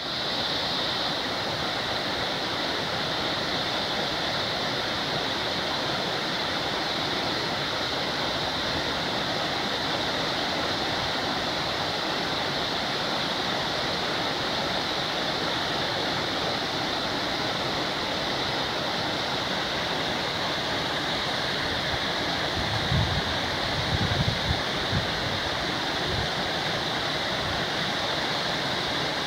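Mountain waterfall rushing steadily in a constant, even roar of water. A few brief low thumps come in near the end.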